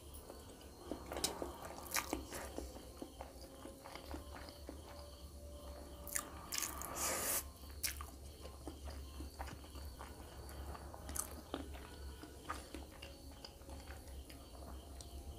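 Chewing and slurping of spicy instant noodles, with a longer slurp about six to seven seconds in. Short sharp clicks throughout are the metal fork on the steel plate.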